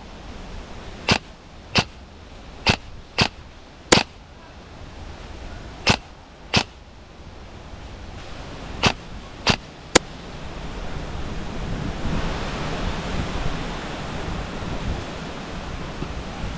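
Airsoft rifles firing single shots: about ten sharp snaps, irregularly spaced, some in quick pairs, over the first ten seconds. After that the shots stop and a rising rush of rustling and wind on the microphone takes over.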